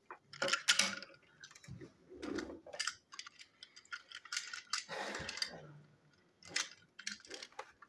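Hard plastic toy train engine and tender being handled and set down on a table: scattered clicks, taps and light rattles of plastic parts.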